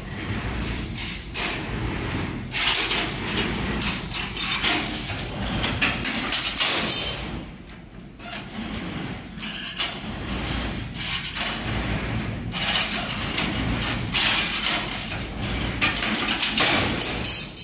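FHG-16B CNC stirrup bending machine working, with a steady hum under a dense clatter of knocks and scraping as the rebar is fed and bent. The noise comes in two working cycles, each dropping off briefly, about eight seconds in and again at the end.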